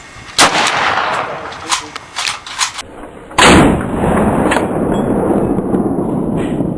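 Romanian PSL rifle firing 7.62x54R with its stock muzzle brake: two loud shots about three seconds apart, with a few fainter pops between them. A steady low rumble carries on after the second shot.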